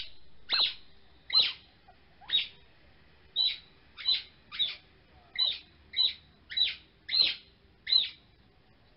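A bird giving a series of short, high chirping calls, about a dozen in a row, each a quick sweep, one every half second to a second at steady loudness.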